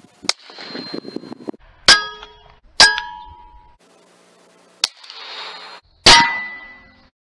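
A series of five sharp air-rifle shots a second or two apart, the three loudest each followed by a ringing metallic tail.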